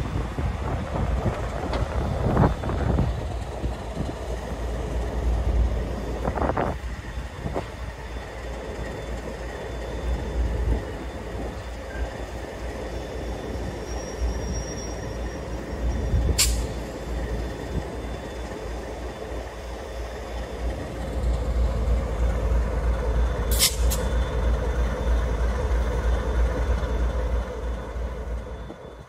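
A train of stainless-steel passenger carriages rolling slowly away over the yard tracks, wheels rumbling and knocking over rail joints and points. A brief thin high squeal comes about halfway, then two sharp clicks follow several seconds apart. A low rumble runs underneath throughout.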